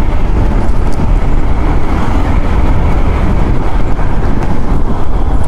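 Steady wind noise on the microphone while riding a Suzuki scooter, with the scooter's engine and tyre noise mixed underneath.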